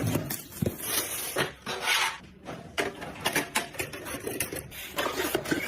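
Hands handling and fitting computer parts: a quick run of light clicks and knocks of hard plastic and metal, with a brief rustle of packaging about one and a half to two seconds in.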